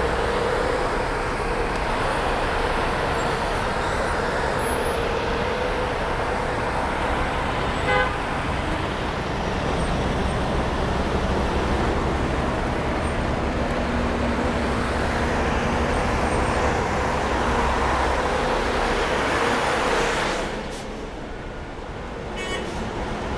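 City street traffic at a busy intersection: the steady noise of buses, trucks and cars running and passing, with one short horn beep about eight seconds in. The noise eases somewhat near the end.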